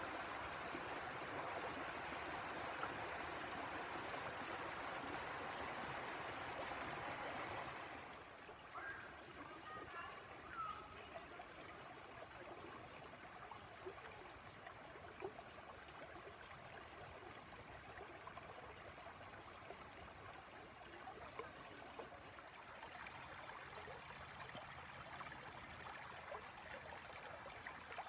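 Tanew river rushing over low rock rapids and small weirs, a steady wash of water that drops suddenly to a softer rush about eight seconds in. A few faint high chirps come a couple of seconds after the drop.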